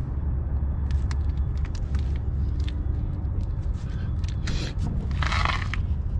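Hands pressing and rubbing a tire sticker's clear transfer tape down onto a tire sidewall, giving scattered light crackles and a short scraping rub about five seconds in, over a steady low rumble.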